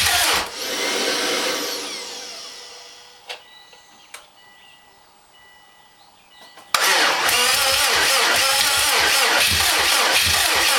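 The rebuilt turbocharged flat-four of a 2007 Subaru WRX STi being cranked by its starter, turning over with a rapid rhythmic chug but not firing. The cranking stops about half a second in and winds down with a falling whine, there are a couple of clicks in the quiet, and cranking starts again abruptly about two-thirds of the way through.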